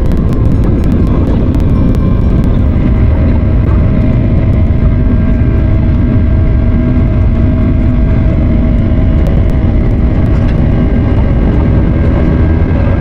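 Airliner jet engines running at high power, heard from inside the passenger cabin during takeoff: a loud, steady rumble with faint steady engine tones over it.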